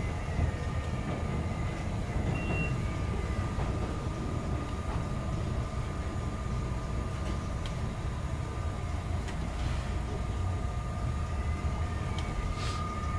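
CTA Brown Line elevated train running along the track, heard from inside the car: a steady low rumble with a steady high whine over it and a few sharp clicks from the wheels.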